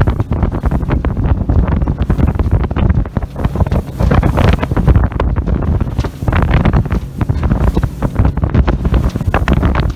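Wind buffeting the microphone on a rigid-hull inflatable boat moving at speed, in loud, gusting rumbles, with water rushing and splashing along the hull.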